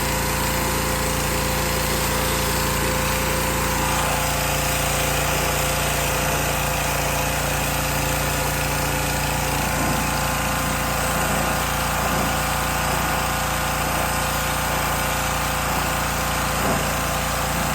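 Pressure washer running steadily: an unchanging motor drone under the hiss of the water spray.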